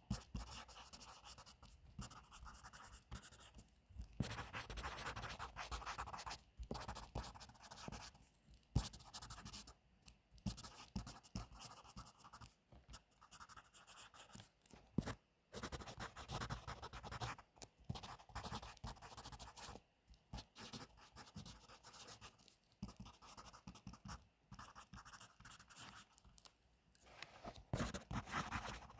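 Pencil writing on paper: scratchy strokes in runs of a second or two, with short pauses every few seconds.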